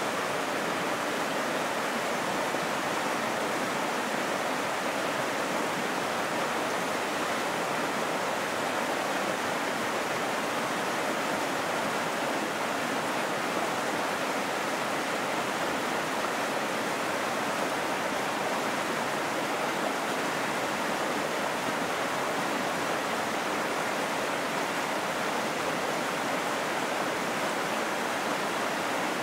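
Flooded creek rushing over rocks in white-water rapids: a steady, even rush of water that does not change.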